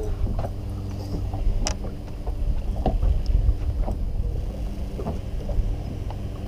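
Wind buffeting the microphone over open water, with a steady low hum and water against a bass boat's hull. A few light knocks and clicks come from rods and reels being worked on the deck.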